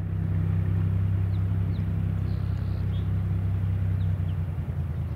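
Cessna U206E Skywagon's six-cylinder piston engine and propeller running at low power while taxiing: a steady low drone that eases slightly about four seconds in.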